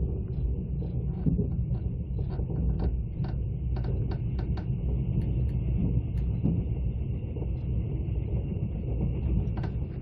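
Mugunghwa-ho passenger train heard from inside the carriage: a steady low rumble of wheels running on the rails, with scattered light clicks and knocks.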